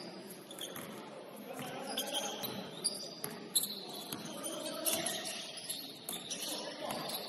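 Sound of a basketball game in a gym. A ball bounces on the court in sharp knocks, several of them a second or so apart in the middle, and sneakers squeak in short high streaks. Indistinct players' voices echo in the background.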